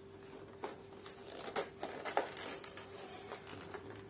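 Cardboard packaging being handled and worked open by hand: irregular rustling and scraping with a few sharp clicks, busiest in the middle. A faint steady hum runs underneath.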